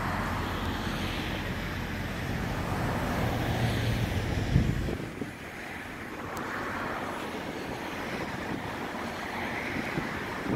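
Altec forestry bucket truck running while its aerial boom is operated, with wind noise on the microphone. A steady low engine hum drops out about five seconds in, just after a brief loud knock.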